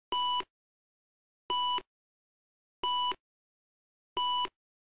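Film countdown leader beeps: four short, evenly spaced beeps about a second and a third apart, each a steady tone of about 1 kHz, one for each number of the countdown.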